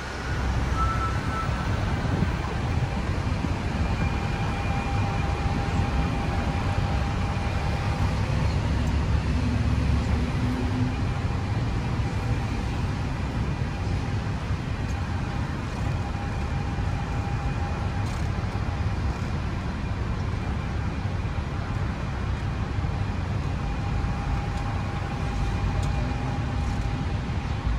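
Open-top double-decker tour bus driving through city traffic: a steady low engine and road rumble, with a faint whine that comes and goes.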